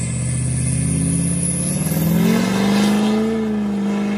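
Lifted GM Duramax diesel pickup accelerating hard from a standstill and putting out black smoke. The engine pitch climbs over the first two seconds or so, with a high whine rising above it, then holds steady as the truck pulls away.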